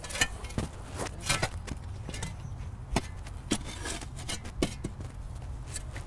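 A metal shovel knocking and scraping among charred logs and fire-pit stones, about a dozen irregular sharp knocks, as a doused campfire is stirred to make sure it is completely out.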